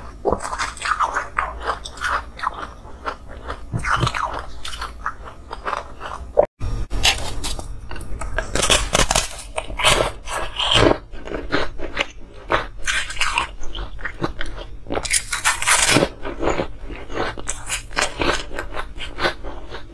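Ice being bitten and chewed close to the microphone: a run of irregular, crisp crunches, with a brief break about a third of the way in.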